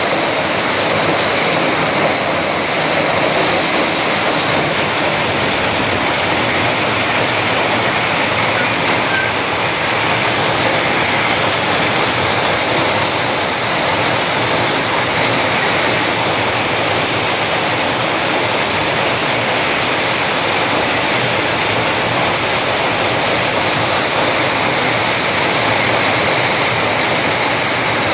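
Hailstorm: hailstones pelting a wet paved courtyard in a loud, dense, unbroken hiss.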